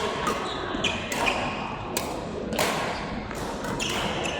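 Badminton rally: rackets hitting the shuttlecock, several sharp hits about a second apart.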